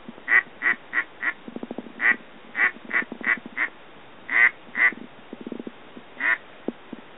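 Ducks quacking: loud, evenly spaced quacks in runs of four or five, then two, then a single one, with a faster, lower chatter twice in between.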